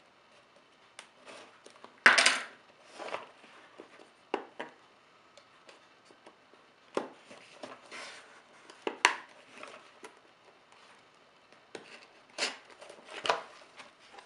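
A cardboard smartphone box being handled: a blade cutting through its seal sticker, then the lid lifted open, heard as scattered taps, scrapes and rustles with quiet gaps between them. The loudest comes about two seconds in.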